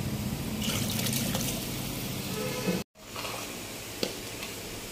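Water running into a large pot of browned chicken to make stock, cut off abruptly a little under three seconds in. A quieter steady hiss follows, with one sharp click about four seconds in.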